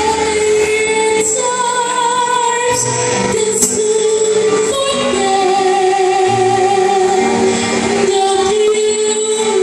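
A woman singing into a microphone, holding long sustained notes that step from one pitch to the next, over a low instrumental accompaniment.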